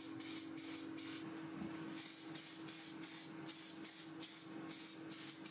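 Aerosol spray paint can spraying bright pink paint in short hisses, about two or three a second, with a longer hiss about two seconds in. A steady low hum runs underneath.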